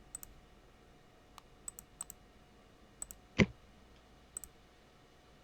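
Scattered light clicks, about ten in all, with one louder knock about three and a half seconds in.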